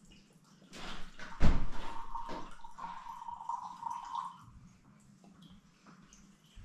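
Drink being poured from a glass bottle into a glass for about three seconds, with a sharp knock as the pour begins.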